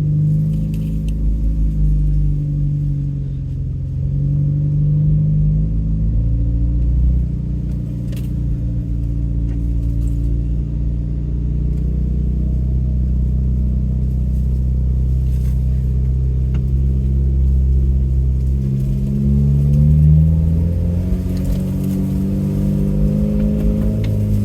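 An off-road 4x4's engine pulling at low revs in four-wheel-drive low range as it crawls a rough trail. The engine note rises and falls several times, with a few brief knocks and rattles.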